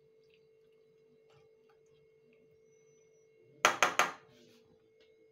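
A metal spoon knocks sharply three times in quick succession on the rim of a non-stick kadhai, a little past halfway. Faint stirring ticks come before the knocks, and a faint steady hum runs underneath.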